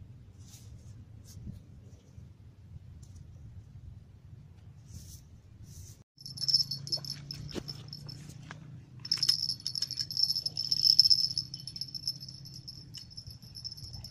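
A high, steady insect call that starts about six seconds in, breaks off briefly, then returns louder and swells near the end, over scattered faint clicks and a low hum.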